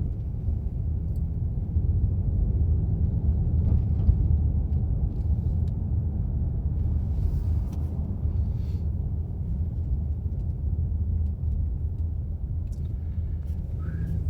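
Car on the move, heard from inside the cabin: a steady low rumble of engine and tyre noise.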